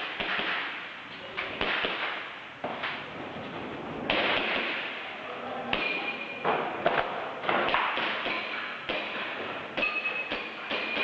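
Airsoft pistol firing an irregular string of sharp shots as a competitor runs a shooting stage, with BB impacts mixed in and a couple of short high pings.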